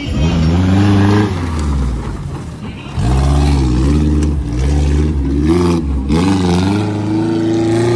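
Suzuki 4x4's engine revving hard under load as it climbs and crawls over a dirt off-road course, the revs surging up and down in repeated bursts. The revs drop briefly about two seconds in and are held high near the end.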